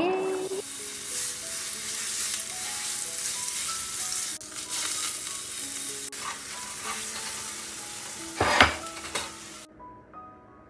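Food sizzling in a frying pan, with soft background music underneath. A loud knock comes about eight and a half seconds in, and the sizzling cuts off abruptly near the end.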